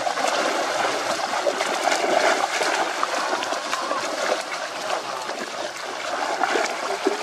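Giant snakeheads crowded by a seine net, thrashing and leaping at the pond's surface: constant splashing and churning water, dotted with many sharp slaps.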